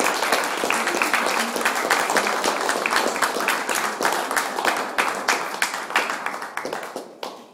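Audience applauding with dense hand clapping, dying away over the last second.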